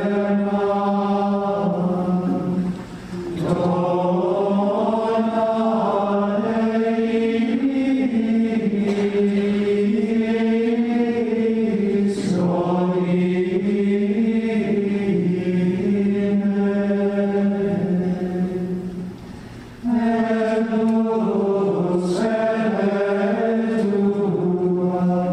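A choir chanting in unison, long held notes gliding slowly from pitch to pitch, with a short pause for breath about three seconds in and another about twenty seconds in.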